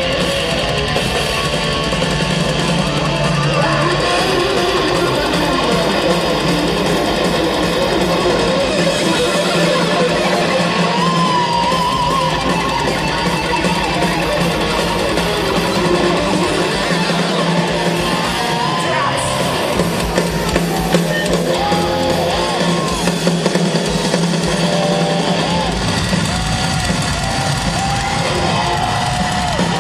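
Heavy metal band playing live: loud electric guitars, with bending, wavering lead lines over a shifting bass line.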